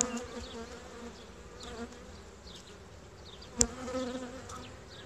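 Honeybees of a Buckfast colony buzzing steadily around an opened hive during a frame inspection. A sharp click comes at the start, and a louder knock about three and a half seconds in.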